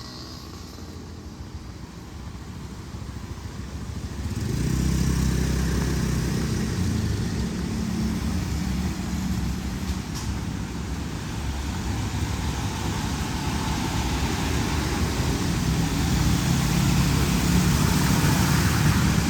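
Steady rain, with a motor vehicle's engine coming up about four seconds in and growing louder again near the end.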